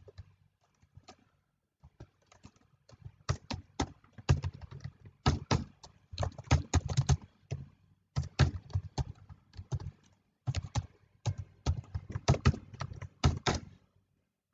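Typing on a computer keyboard: bursts of quick key clicks separated by short pauses. It starts about two seconds in and stops just before the end.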